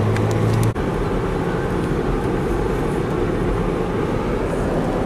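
Car driving on a wet road, heard from inside the cabin: steady road and engine noise. A low hum stops with a brief dip under a second in.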